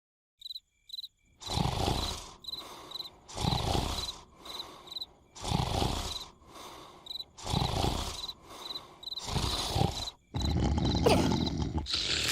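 Cartoon snoring sound effect: loud snores repeating about every two seconds over steady cricket chirping, becoming one continuous louder noise near the end.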